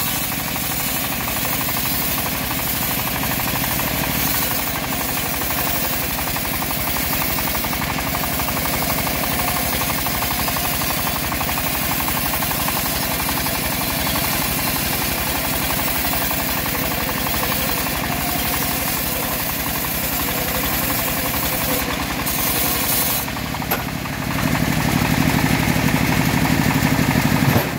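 Homemade band sawmill ripping lengthwise through an old teak log butt: the engine driving it runs steadily under load while the blade cuts. About 24 seconds in the sound dips for a moment, then grows louder and heavier until the end.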